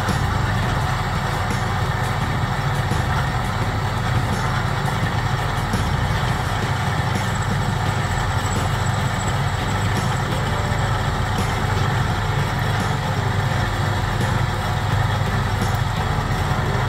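Bench drill press running with a steady low hum as its twist bit drills a hole through a bent aluminium bar clamped in a vise.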